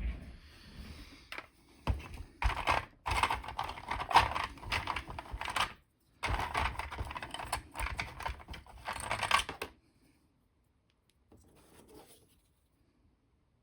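Small hobby clamps and tools being rummaged through and handled: rapid clicking, clattering and scraping in two long stretches, then a brief faint bit of handling.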